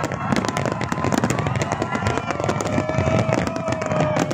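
Dense fireworks barrage: a rapid, unbroken crackle of many shells and crackling effects bursting at once, with bangs in quick succession.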